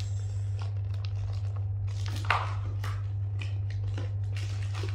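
Cardboard box of plastic zip-lock bags being opened and handled: scattered crinkling and rustling of plastic and card, with one sharper knock about two seconds in. A steady low hum runs underneath.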